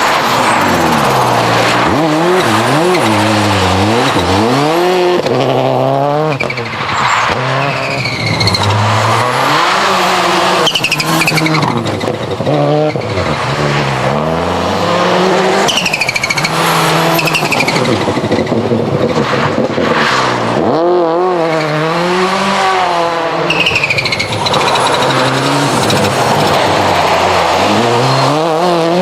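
Subaru Impreza WRC rally car's turbocharged flat-four engine driven hard, its pitch climbing and dropping again and again through gear changes and lifts. Short high falling chirps come at several of the lifts.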